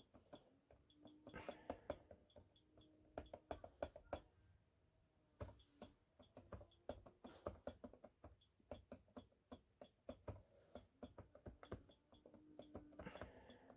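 Quick, irregular clicks and taps of keys being pressed on a ZX Spectrum 48K keyboard, entering hits into a SpecDrum drum pattern, several a second in bursts with short pauses between.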